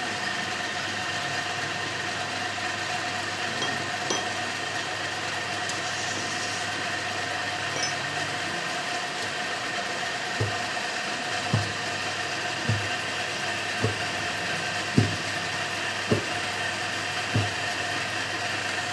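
Steady machine hum with a constant whine. From about halfway through, a regular run of dull knocks comes roughly once a second.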